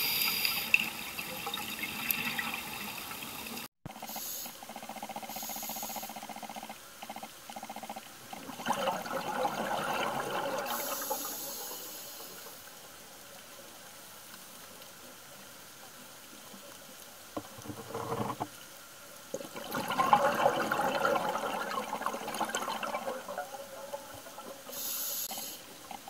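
A scuba diver's regulator breathing, heard underwater: bursts of exhaled bubbles bubbling and gurgling for a few seconds at a time, with quieter hissing between them.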